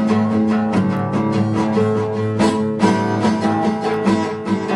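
Instrumental break of a song: guitar strummed in a steady rhythm, with no singing.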